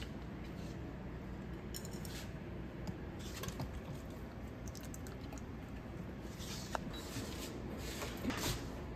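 A steady low kitchen hum with a few light clicks and taps. Near the end, metal and plastic cooking utensils clatter as a kitchen utensil drawer is rummaged.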